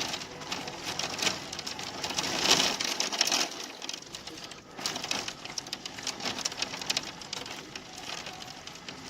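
Pea-size hail pelting down, a dense irregular patter of many small hits, heaviest about two and a half to three and a half seconds in.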